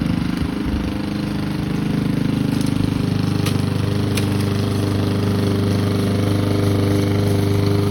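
Lawn mower engine running steadily at a constant speed while cutting grass.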